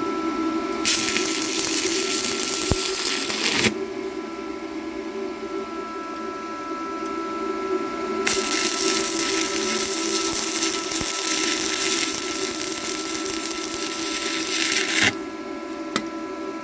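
Stick (arc) welding: the electrode arc crackles and sizzles in two runs, a short one about a second in and a longer one from about eight seconds until shortly before the end. A steady hum runs underneath.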